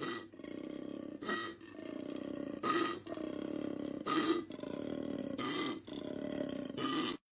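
Koala bellowing: a low, droning call broken about every second and a half by a short, harsher gasp, repeating in cycles. It cuts off suddenly near the end.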